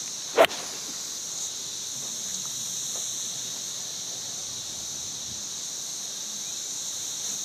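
A golf iron striking the ball off the tee: one sharp click about half a second in, a strike the golfer says he didn't catch the best. A steady high drone of insects runs underneath.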